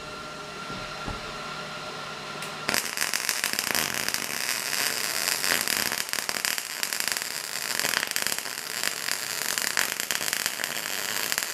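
A steady hum, then about three seconds in a MIG wire-feed welder with shielding gas strikes its arc on thin sheet steel. It holds a steady, dense crackle and sizzle for the rest of the time as cracks in a snowblower's auger housing are welded up.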